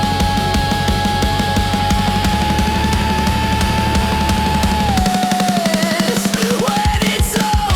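Heavy rock instrumental: drum kit, bass and a long sustained lead note that bends downward. About five seconds in, the bass drops out, leaving a short sparser break before the full band comes back in.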